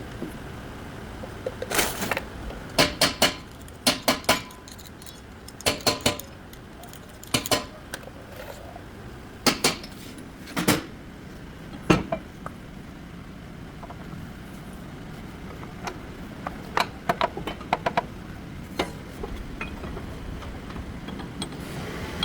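Metal hand tools clinking and tapping against car parts in irregular clusters of sharp clicks, with quieter stretches between and a quicker run of lighter taps in the second half.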